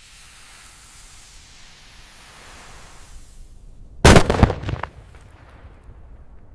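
Dynamite explosion sound effect: a steady hiss that fades over about four seconds, then a sudden loud blast of several quick cracks, trailing off into fading crackle.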